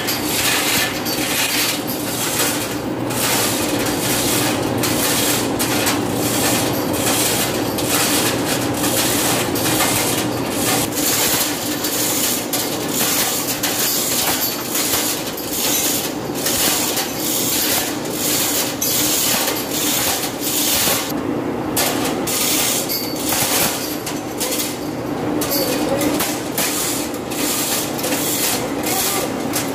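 Manual chain hoist being hand-pulled, its load chain rattling and clicking through the block in rapid, irregular clicks, over a steady low machinery hum.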